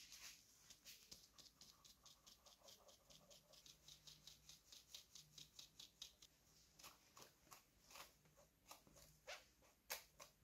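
Fine-mesh metal sieve tapped and shaken over a glass bowl as flour sifts through: a faint quick run of soft taps, about five a second, then slower, sharper taps in the last few seconds.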